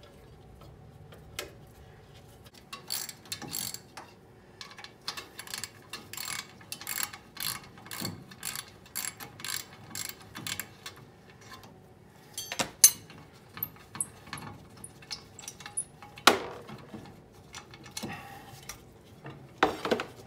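Ratchet wrench clicking in short strokes, about two clicks a second, as the fasteners on a rear drum-brake backing plate are backed off. A few louder metal knocks follow in the last eight seconds, the loudest near the end, as the backing plate comes free.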